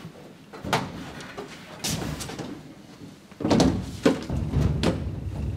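Office storage cabinet being shut with a person climbing inside: a series of knocks, bumps and clunks against the cabinet door and panels, the loudest cluster about three and a half seconds in.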